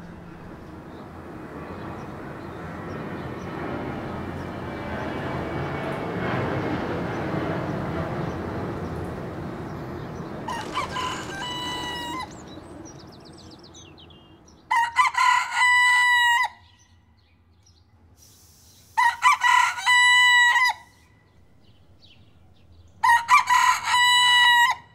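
A white broiler rooster crowing: one fainter crow about ten seconds in, then three loud crows of about two seconds each, some four seconds apart. Before the crows, a broad wash of background noise swells up and fades away.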